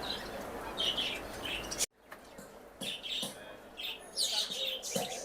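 Small caged birds chirping in short, repeated high calls, over a steady background noise that cuts off abruptly about two seconds in.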